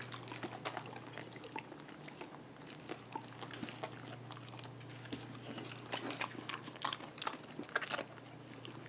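Dogs, a Shetland sheepdog among them, chewing food scraps and moving about on a hardwood floor: scattered small clicks over a low steady hum.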